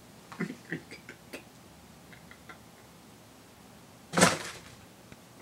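Light handling clicks and rustles of items being unpacked, then a short breathy laugh about four seconds in.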